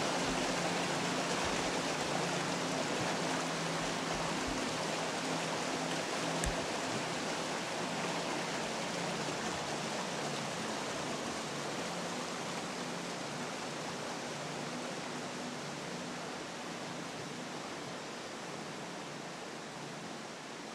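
Steady rush of running water, an even hiss that slowly fades out, with a faint low drone beneath it for the first half.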